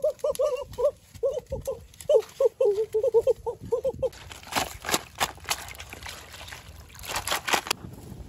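An animal's call, a short arched note repeated about three or four times a second for the first four seconds. It is followed by a run of sharp clicks and snaps as hands dig through mud and dead twigs at a crab burrow.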